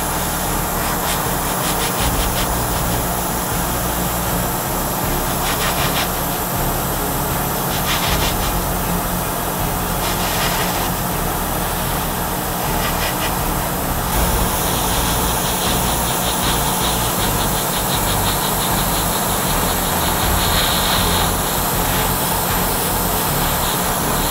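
Paint sprayer hissing steadily as paint is sprayed onto a plastic model.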